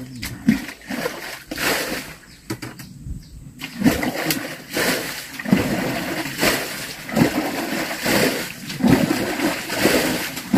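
Water splashing in a steady rhythm, about one splash a second from about four seconds in, as a stream pool is bailed out by hand.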